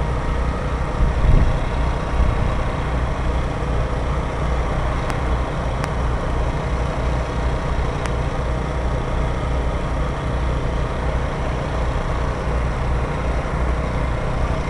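Steady low rumble of wind buffeting the microphone, fluttering unevenly, with a few faint clicks.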